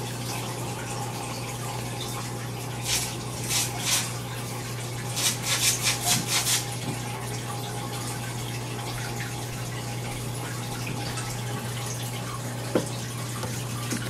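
Aquarium water running and trickling over a steady low hum from the tank's filter. A few brief louder bursts of water noise come about three to six seconds in.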